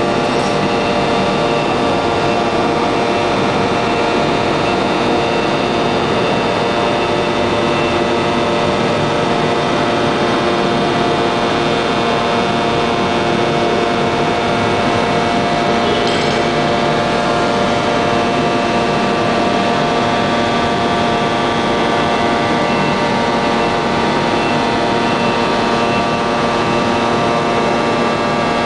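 A 1250-ton open-die forging press running steadily: a continuous loud machine drone with several steady tones, and a faint click about sixteen seconds in.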